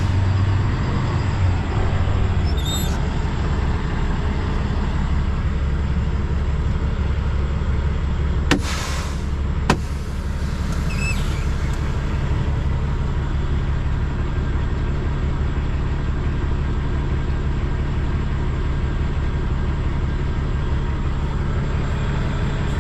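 Semi truck's diesel engine running steadily with a low hum. Two sharp clicks a little over a second apart, about eight and a half seconds in; the first is followed by a short hiss.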